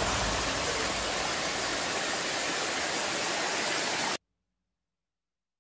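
Steady rush of water sliding down a rock-slab cascade into a natural pool, cutting off suddenly about four seconds in.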